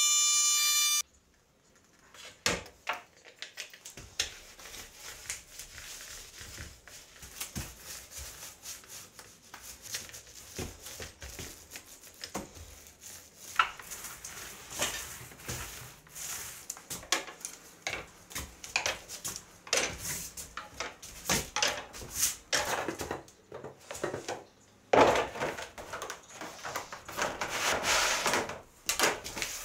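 Compact router whining at a steady high pitch, cutting off abruptly about a second in. Then come scattered knocks, taps and rubbing from tools and a thin sheet of countertop material being handled, loudest near the end.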